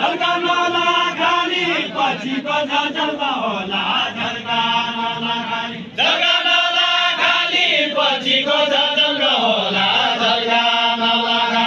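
Deuda folk song sung in a drawn-out, chant-like style: voices hold long notes in two phrases, split by a short break about halfway, each sliding down in pitch toward its end.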